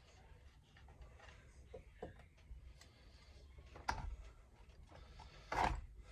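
Hands handling an old Homelite Easy 250 chainsaw on a bench: a few scattered clicks and light knocks of plastic and metal parts, with a louder knock near the end.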